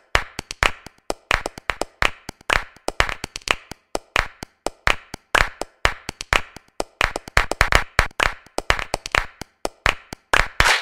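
Rhythmic hand claps and sharp taps, several a second in uneven groups, forming a percussion-only music track with no pitched instrument.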